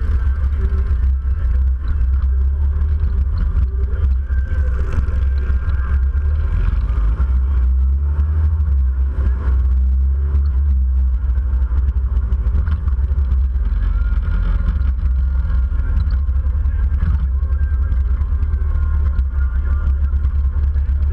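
Motorcycle riding along a road, its engine running steadily under a constant deep wind rumble on a bike-mounted camera's microphone.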